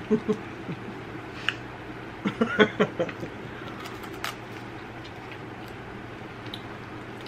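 Wordless sounds of eating: a few short hums or stifled laughs about two to three seconds in, then a sharp crunch a little after four seconds as a chocolate-coated crispy rice waffle is bitten, over a low steady room hum.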